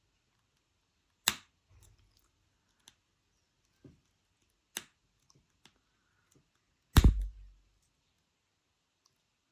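Sharp clicks and taps of jewellery-making tools and small wire parts being handled on a work surface: a loud click about a second in, another near five seconds, and the loudest near seven seconds with a dull knock, as of a tool set down, with fainter ticks between.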